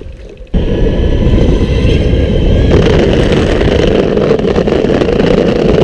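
BenchWheel electric longboard rolling over cobblestones: a loud, coarse rattle from its wheels that starts suddenly about half a second in, with a steady whine underneath. The board copes with the cobbles, though not smoothly.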